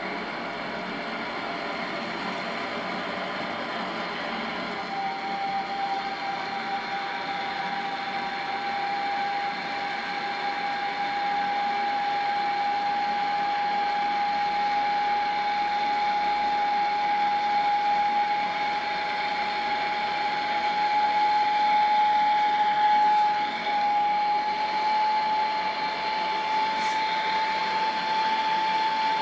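Plumber's gas blowtorch flame hissing steadily while heating a 15 mm copper elbow joint for soldering; about five seconds in, a steady whistling tone joins it and rises very slowly in pitch.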